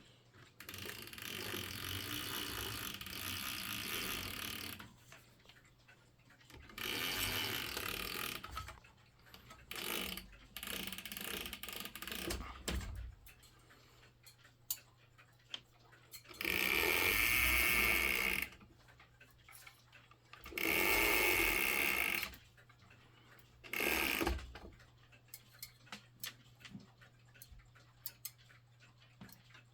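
Linden weight-driven wall clock being wound with its key: six runs of rapid ratchet clicking, the last three the loudest, with the clock's ticking heard between and after them.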